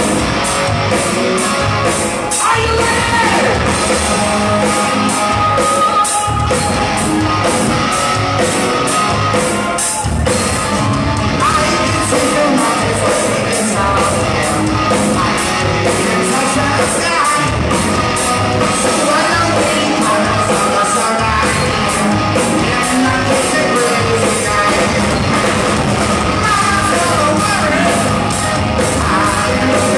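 Live rock band playing loud in a large hall: electric guitars, bass and drums keeping a steady beat, with a singer's voice over them.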